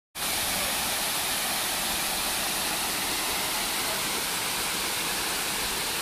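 Waterfall pouring over rocks into a pool: a steady rush of falling water.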